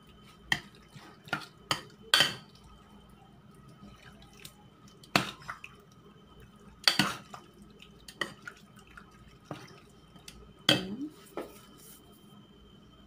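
Metal utensils clinking against a glass bowl as wet, batter-coated chicken pieces are stirred and lifted. About ten sharp, irregular clinks, with the loudest around two, five, seven and eleven seconds in.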